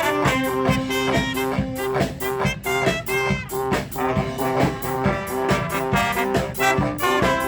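Brass street band playing an instrumental tune: trombones and trumpets hold and repeat notes over drums keeping a steady beat.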